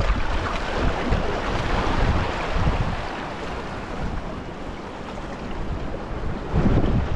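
Wind buffeting the microphone over the rushing noise of waves; the gusts ease off in the middle and pick up again near the end.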